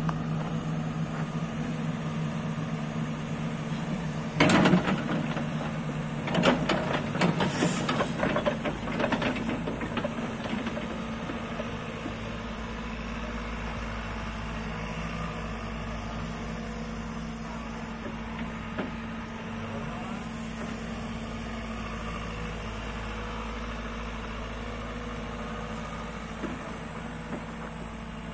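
JCB JS145 tracked excavator's diesel engine running steadily while the boom and bucket are worked. A loud knock comes about four seconds in, with a run of knocks and rattles a couple of seconds later, before it settles back to a steady run.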